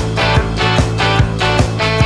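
Background music with a steady beat, about two and a half beats a second.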